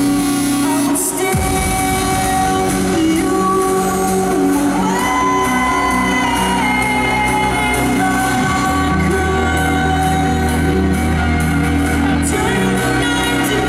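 Trance music played loud over an arena sound system, with a sung vocal over sustained synth chords. A deep bass comes in about nine seconds in and drops out about three and a half seconds later.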